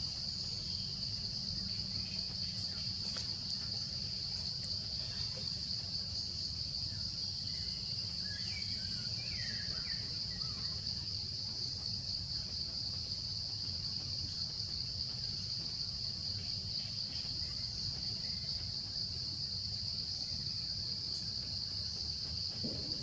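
Steady insect chorus, crickets chirring in one continuous high band, over a low rumble, with a few faint chirps about eight to ten seconds in.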